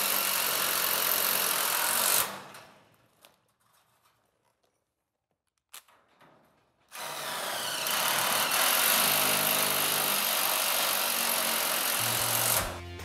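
DeWalt cordless driver running screws into a steel garage door panel: a run of about two seconds, a pause of several seconds, then a longer run of about five seconds.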